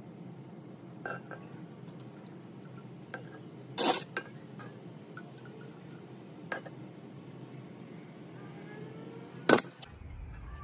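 Water poured from a jug onto the soil of a terracotta pot, a soft steady pour. A few light knocks and clinks break in, with louder knocks about four seconds in and near the end.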